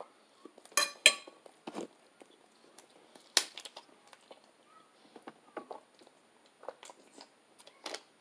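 Fork and dish clinking during a meal: a few sharp clinks about a second in and a loud click near the middle, followed by scattered small clicks and handling sounds from a plastic water bottle.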